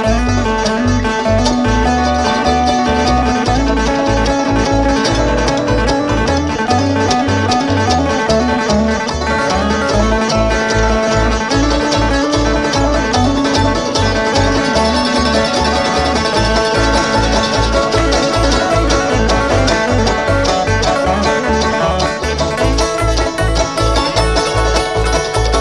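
Bluegrass string band playing live, banjo to the fore over guitar and a steady bass pulse.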